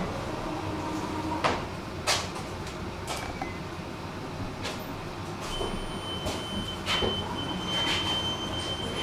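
Inside a tram: a steady low rumble with several sharp clicks and knocks. A steady high tone comes in a little past halfway and holds.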